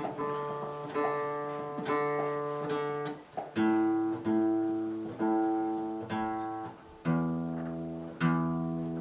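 Acoustic guitar strumming chords without singing, an instrumental lead-in to a song. Chords are struck about once a second and each rings out, changing chord about a third of the way in and again near the end.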